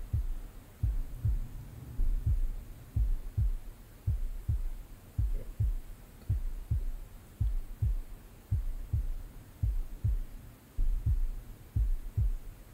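Slow heartbeat: low double thumps (lub-dub), about one beat a second, steady throughout.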